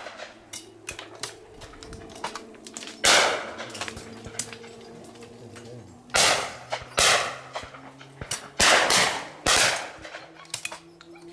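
Shotgun shots at clay targets: a single shot about three seconds in, then two quick pairs of shots near the end, each pair under a second apart.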